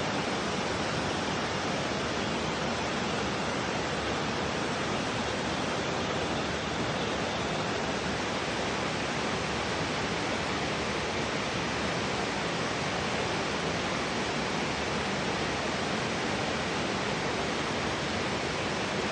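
Mountain stream water rushing, a steady even noise with no breaks.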